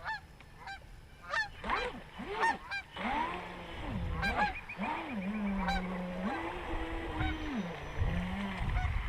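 Geese honking repeatedly with short calls. From about three seconds in, a lower tone under them rises, holds level and falls several times.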